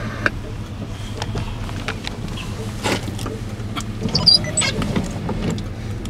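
Steady low hum of a car's engine heard from inside the cabin as it creeps along, with scattered light clicks and ticks.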